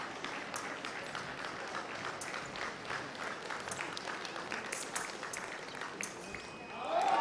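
Fencing hall ambience: a steady crowd hum with scattered, irregular claps and sharp clicks. A little before the end a sudden loud outburst of sound begins as the touch is scored.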